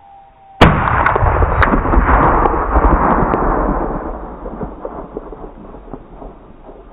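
A single rifle shot from a scoped rifle, a sudden loud crack followed by a long rolling echo that fades over several seconds. A short sharp ping about a second after the shot is the bullet striking the steel gong target.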